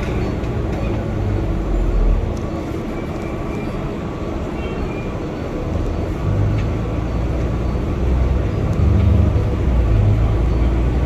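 Vehicle ride heard from inside, most likely a city bus: steady engine and road rumble that swells louder about six seconds in and again near the end.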